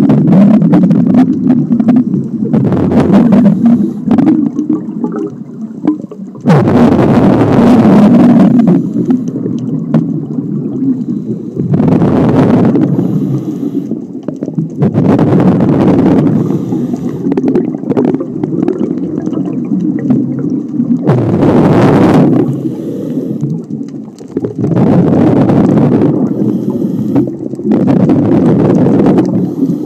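Scuba diver breathing through a regulator underwater: a loud rush of exhaled bubbles about every four seconds, with quieter stretches between breaths.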